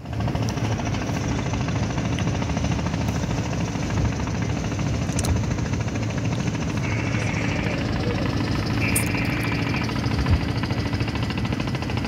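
A boat engine running steadily, with a rapid chugging pulse. Two short high-pitched tones sound over it, about seven and nine seconds in.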